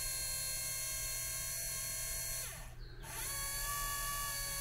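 Freshly rebuilt 1974 VW Beetle wiper motor running unloaded on a bench power supply with a steady electric whine. About two and a half seconds in it is cut off and spins down. Half a second later it is powered again, spins up and runs on.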